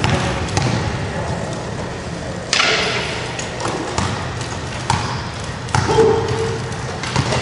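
Wheelchair basketball play on a hardwood gym court: a basketball bouncing and the knocks and thuds of sports wheelchairs, several sharp hits, the loudest about two and a half seconds in.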